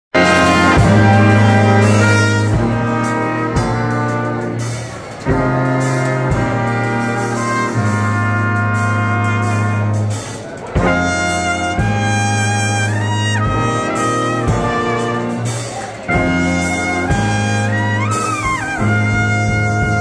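Live brass band playing: a sousaphone holds a steady bass line under trumpets, trombones and saxophone, with short breaks between phrases. Near the end a horn slides up in pitch.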